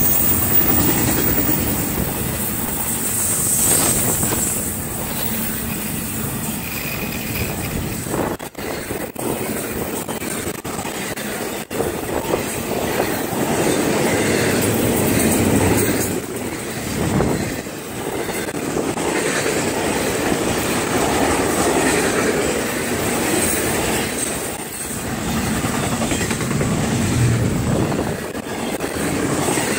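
Florida East Coast Railway intermodal freight train rolling past at speed: the steady rolling noise of the cars' steel wheels on the rails, with no horn or engine in front.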